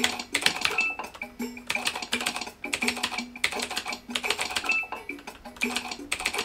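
Fast, continuous typing on a backlit computer keyboard: a dense, uneven run of key clicks, over background music with short repeated notes.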